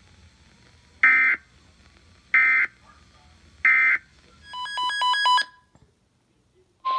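Emergency Alert System end-of-message code: three short, buzzy data bursts about 1.3 s apart, closing a weather-radio tornado warning. A quick run of electronic beeps follows, and right at the end a steady alert tone begins.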